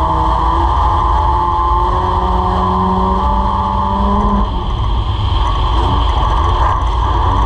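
Dirt-track race car engine heard from inside the cabin, its pitch climbing steadily under throttle down the straight. About four and a half seconds in the revs drop and the sound turns rough and unsteady as the car reaches the turn, then the engine pitch starts to build again near the end.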